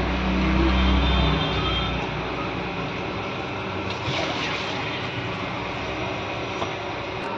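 Oil heating in a steel wok, a steady hiss with faint sizzling, and a low rumble for the first two seconds.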